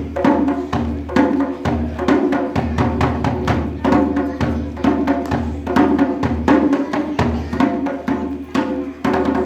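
Percussion-heavy music: fast, sharp drum strikes over pitched tones and a low steady drone.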